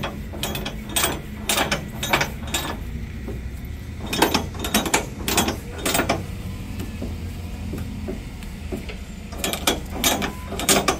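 Flatbed truck strap winch ratcheting as its drum is turned to tighten a new cargo strap, the pawl clicking over the ratchet gear. Sharp clicks come in three runs of several each: near the start, around the middle and near the end.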